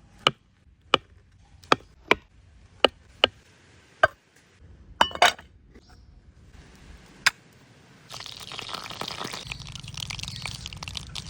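A string of sharp clicks or knocks, spaced irregularly about half a second to a second apart, followed from about eight seconds in by a steady rushing hiss.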